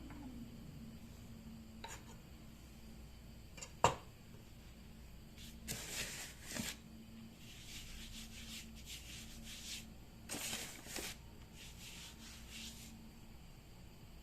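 Food-preparation handling sounds: a sharp knock about four seconds in, then several short spells of rubbing and scraping.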